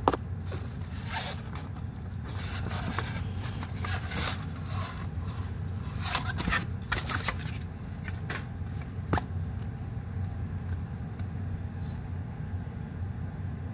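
Plastic blister packaging and cards being handled, rustling and scraping in bursts through the first seven seconds or so. There is a sharp click at the very start and another about nine seconds in, over a steady low hum.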